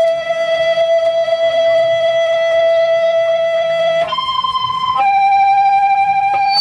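Live rock band playing, with one long sustained high lead note held for about four seconds, then stepping to two shorter held notes, over a low bass line; the sound cuts off abruptly at the end.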